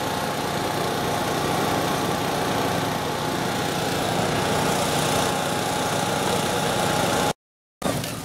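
An engine running steadily: a continuous even hum with a faint high tone in it, cut off abruptly near the end.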